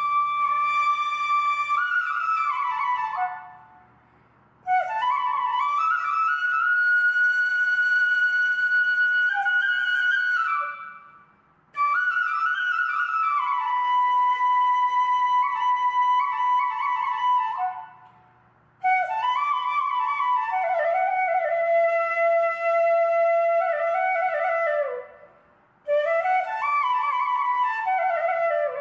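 Background music: a solo flute melody of long held notes that slide up and down between pitches, in phrases broken by four short pauses.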